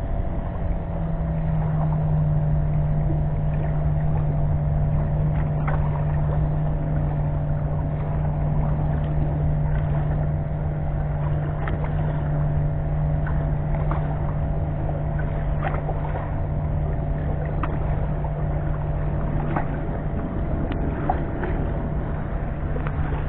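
A steady low motor hum that starts about half a second in and holds an even pitch, over low wind rumble on the microphone with a few faint clicks.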